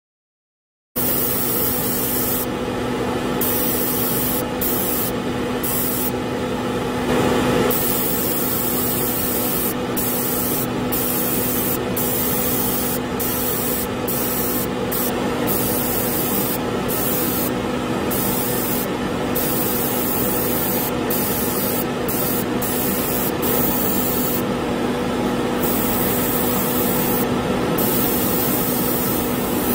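Airbrush spraying paint, its hiss starting about a second in and cutting in and out in the top end many times as the trigger is worked, over a steady hum from the spray booth's exhaust fan.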